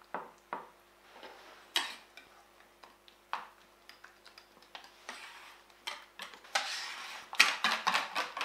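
A spoon and wire whisk knocking and scraping in a stainless steel bowl of chocolate cream, a few separate taps at first. About six and a half seconds in, the whisk starts beating rapidly against the bowl's side as the mixture is whisked smooth.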